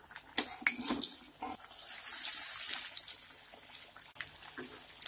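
Spinach vadas deep-frying in hot oil: a steady sizzle with crackles and pops, swelling louder about two seconds in.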